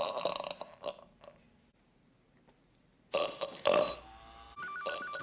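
Loud, drawn-out comic belches from a TV sitcom character: one at the start lasting about a second, and another starting about three seconds in. A short trill of two alternating tones comes near the end.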